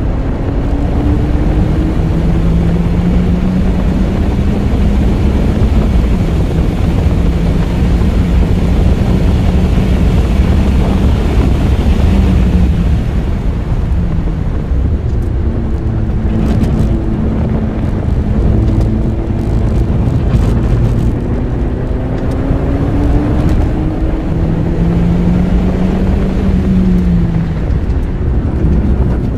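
Lotus Elise Series 3 engine pulling hard on a race track, its note rising under acceleration and dropping off several times with braking and gear changes, under heavy wind and tyre noise in the open cockpit.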